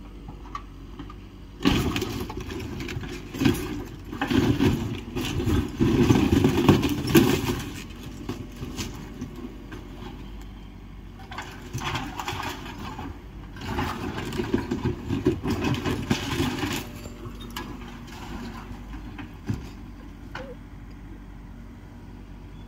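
Excavator engine running steadily while the machine crushes and tears through demolition debris of wood and metal sheeting. There are two long stretches of crashing and crunching, from about two to eight seconds in and again from about eleven to seventeen seconds.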